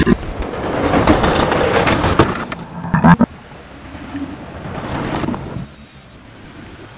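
Plastic ride-on toy car clattering and knocking on a wooden floor as it is tipped back onto its wheels, with a loud knock about three seconds in, then dying down to a low hiss.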